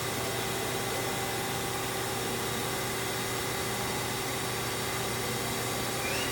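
Steady mechanical hum with an even hiss and several constant tones, unchanging throughout.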